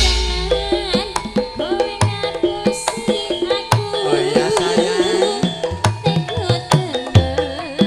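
Live Javanese gamelan music: hand-drum strokes over ringing bronze kettle gongs and metallophones. About four seconds in, a female singer joins with a wavering, ornamented vocal line through a microphone.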